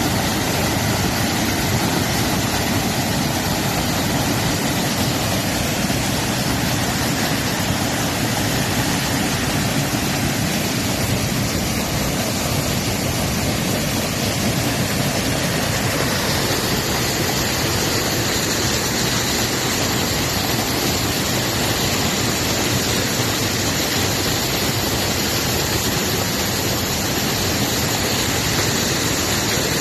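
Steady rushing water, an even noise with no breaks.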